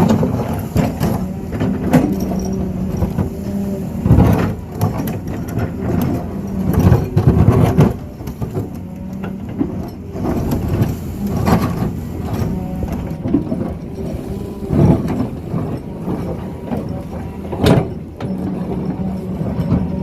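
Doosan excavator's diesel engine running steadily under working load, with sharp knocks every few seconds as it digs.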